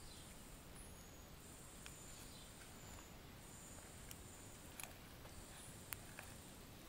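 Faint, high-pitched insect trilling that starts and stops in stretches of a second or two, with a few sharp clicks between about four and six seconds in.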